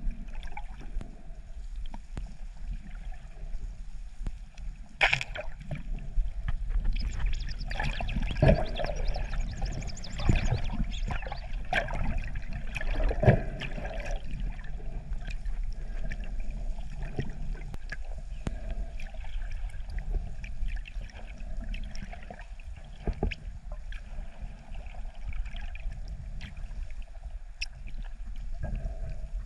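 Underwater sound of water moving and bubbling around a camera, with scattered short clicks; it grows busier and louder for several seconds in the first half.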